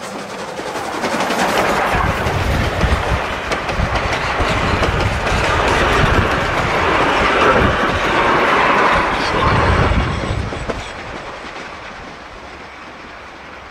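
Steam-hauled passenger train, locomotive 621 and its carriages, passing close by. The wheels clatter over the rail joints, loudest from about two to ten seconds in, then fade as the last carriage pulls away.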